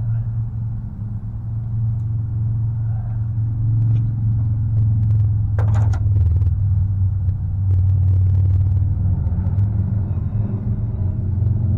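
Ford F550 rollback truck's engine idling with a steady low rumble. A short burst of noise about six seconds in.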